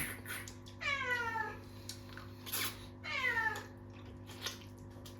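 A cat meowing twice, two short calls that fall in pitch about two seconds apart, with a few faint clicks between them.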